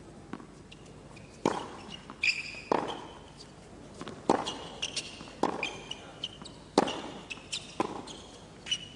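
Tennis rally: the ball is struck back and forth by rackets about every second and a quarter, with sneakers squeaking on the court between shots.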